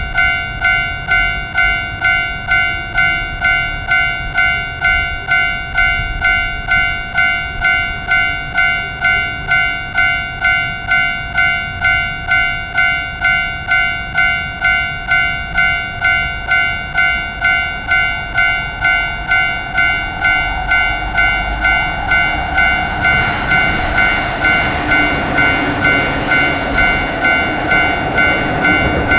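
Japanese railroad crossing warning bell ringing in a steady, even beat. From about two-thirds of the way in, the rushing noise of a passing train swells beneath it.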